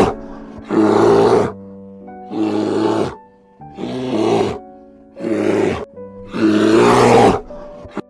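Bear growling in a series of loud calls, each under a second long and roughly one every second and a half, over gentle piano music.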